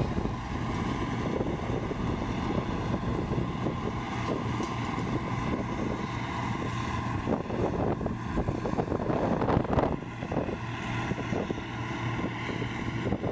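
Bizon combine harvester running steadily under load while harvesting triticale, its engine and threshing gear making a constant hum. Wind gusts rumble on the microphone.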